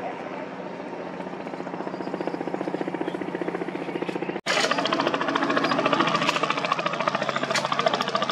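An engine running steadily with a fast, even pulse. It breaks off abruptly a little over four seconds in and resumes louder and brighter.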